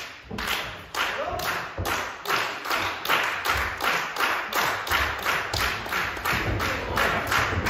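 Audience clapping in a steady rhythm, about three claps a second.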